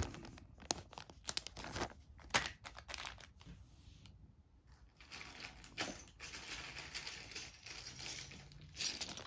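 Small clear plastic zip bags of game pieces crinkling and rustling as they are handled, with a short lull about four seconds in before the crinkling picks up again.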